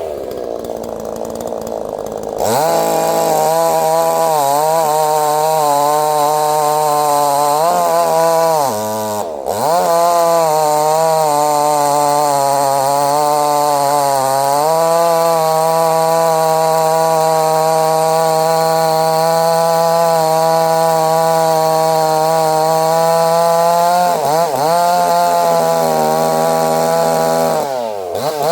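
Neotec NCS6800 68cc two-stroke chainsaw running hard at high revs, its pitch wavering. The engine drops sharply and picks back up a few times, then falls back toward idle at the end.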